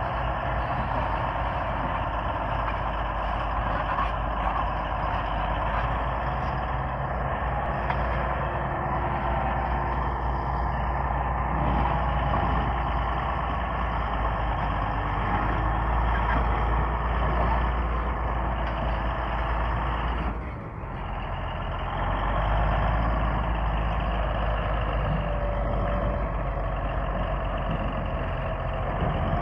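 Komatsu D155A bulldozer's diesel engine running steadily, dipping briefly about two-thirds of the way through before picking up again.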